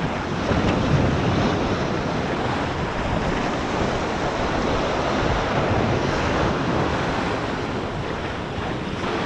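Ocean surf washing and splashing over jetty rocks close by, with wind buffeting the microphone, steady throughout.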